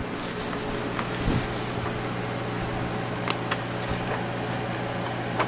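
A steady mechanical hum with a few low fixed tones, with a few light clicks and rustles of paper sheets being handled.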